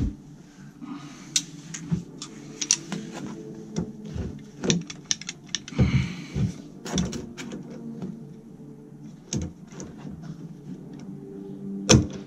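Handling noise as a corrugated plastic dishwasher drain hose is worked onto its fitting: irregular clicks, knocks and rattles of the ribbed hose and of pliers on a metal hose clamp, over a low steady hum.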